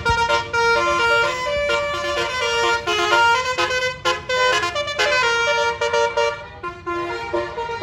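Bus basuri 'telolet' horn with roof-mounted trumpets, playing a fast melody of short stepped notes.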